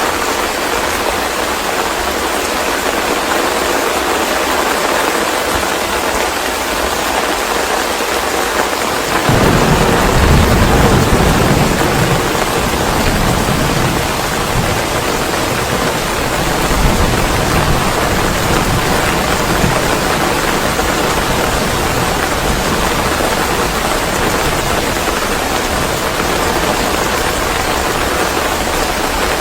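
Steady rain, with a low rumble of thunder starting suddenly about nine seconds in, loudest for a few seconds, then rolling on more faintly with another swell a few seconds later.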